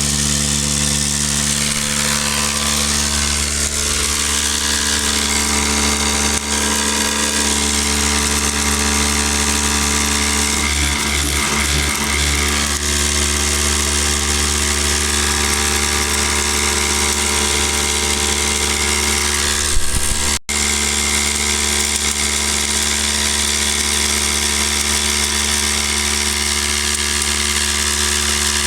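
Backcountry Tornado F2 electric drywasher running steadily, a continuous motor hum and vibration, with a brief knock and momentary dropout about twenty seconds in.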